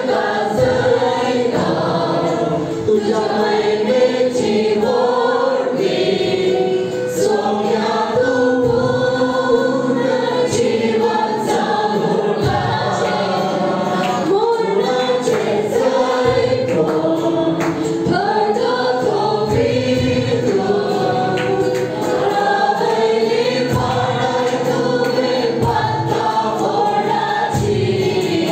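Worship team and congregation singing a Christian worship song together as a group, with instrumental accompaniment.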